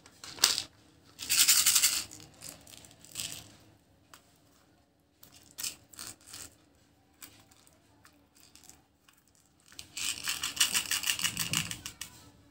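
Small hard sugar-coated candies rattling inside a plastic toy candy dispenser as it is handled and shaken, with sharp clicks of its plastic cap. There is a short rattle about a second in and a longer one near the end.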